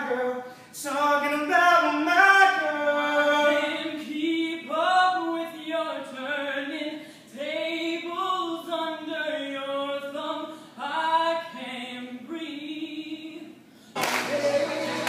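A single voice singing unaccompanied, an audition song with long held notes. About a second before the end it cuts to a loud crowd singing together.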